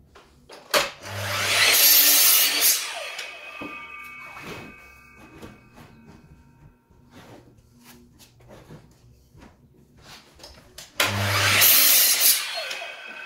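Bosch mitre saw making two crosscuts through a wooden board: each time the motor starts, the blade cuts loudly for about two seconds, then spins down with a fading ring. Between the cuts, wood knocks and slides as the board is pushed along to the stop block.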